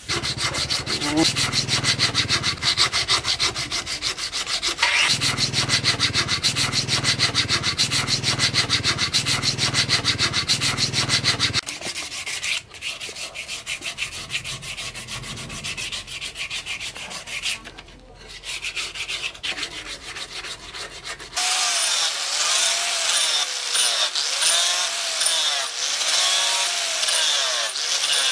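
A wooden axe handle being shaped by hand, rapid rubbing and scraping strokes against the wood, loud for about the first twelve seconds and then softer. About three-quarters of the way through, an angle grinder starts grinding steel and runs with a steady whine.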